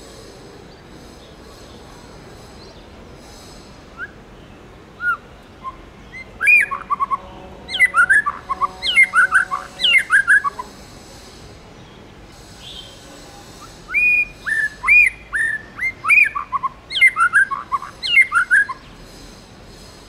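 White-rumped shama singing: a few single whistled notes, then two bouts of rich, quickly changing whistles that rise and fall in pitch, separated by a pause of about three seconds.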